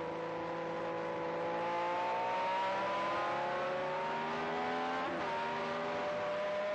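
Matra V12 engine of a 1978 Ligier Formula One car, heard onboard, accelerating hard. Its note rises steadily, drops with an upshift about five seconds in, then climbs again.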